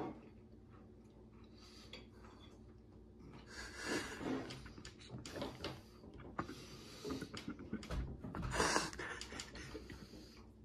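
A man breathing hard and wheezing through his nose and mouth as he struggles to get down a mouthful of a revolting jello pie. Heavy, strained breaths come in bouts about four seconds in and again around eight seconds, with faint clicks of a fork on a plate between them.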